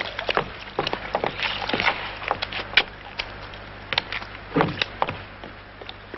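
Footsteps and creaking wood: a string of irregular sharp knocks and cracks, densest about four and a half seconds in, over a steady low hum.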